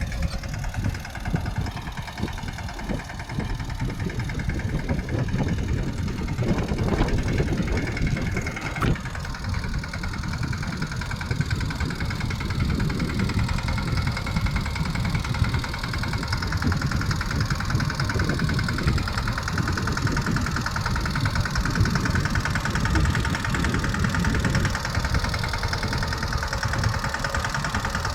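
Mahindra Yuvraj mini tractor's single-cylinder diesel engine running steadily, with a continuous low rumble and an even mechanical drone.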